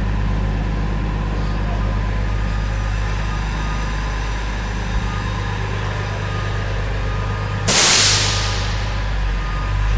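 A truck's engine idling steadily. About three-quarters of the way in, a sudden loud hiss of compressed air venting from the air brake system fades out over about a second.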